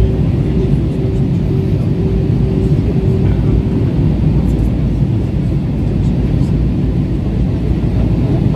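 Steady low rumble of an Airbus A320-family jet airliner's engines and the rushing air, heard inside the passenger cabin. A faint steady hum stops about halfway through.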